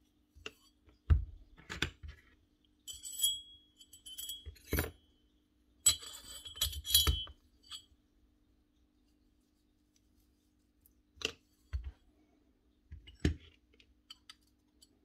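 Steel parts of a Bosch GBH 8-45 D hammer's mechanism being handled and fitted: scattered knocks against the bench and metal, with two stretches of ringing metallic clinks about three and six seconds in.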